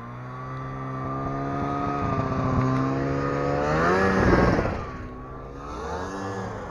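Snowmobile engine running under throttle as it drives past close by. It grows louder, rises in pitch as it passes about four seconds in, then drops in pitch and fades as it moves away.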